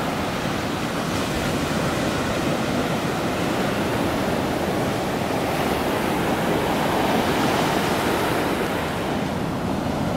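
Ocean surf breaking and washing up a sandy beach: a steady rush of noise.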